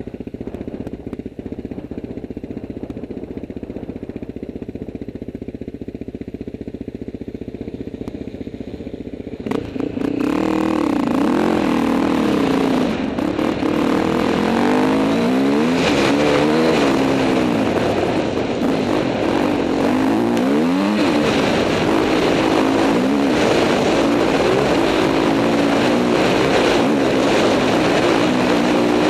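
KTM EXC 250 trail bike engine, heard from an on-board camera. It runs steadily at low revs at first, then about a third of the way in it gets suddenly louder, and the revs rise and fall over and over as the bike accelerates and shifts along the track.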